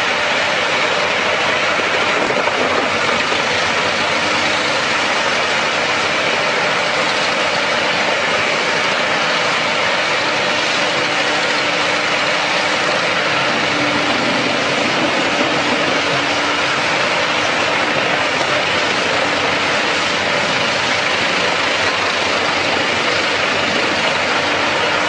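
Heavy-duty wood chipper running steadily, a loud even engine-and-machine noise that holds the same pace throughout.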